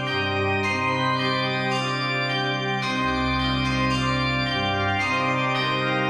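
Background organ music: slow, sustained chords, with a deep bass note coming in about halfway through.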